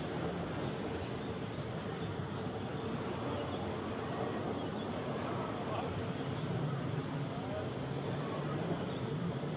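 Insects droning in a steady high-pitched band, with faint voices underneath.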